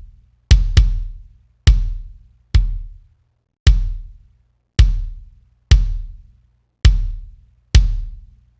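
Soloed, sample-replaced kick drum track playing back in a mix session. It has an EQ boost around 50–60 Hz and about 3 dB of fast-release compression. The single hits come roughly once a second, with a quick double hit near the start; each is a sharp click followed by a deep boom that dies away, with a little rumble in the low end.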